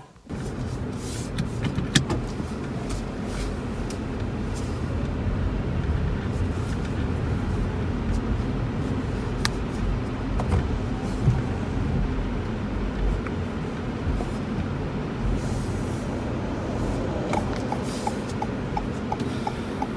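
Car on the move, heard from inside the cabin: steady engine and tyre noise, with a few light knocks. A fast, regular ticking starts near the end.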